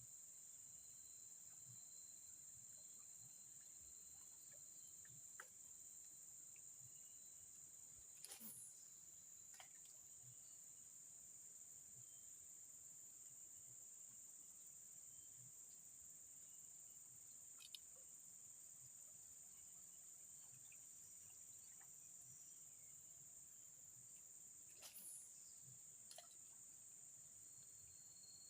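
Faint, steady, high-pitched insect chorus, with a few brief faint clicks scattered through it.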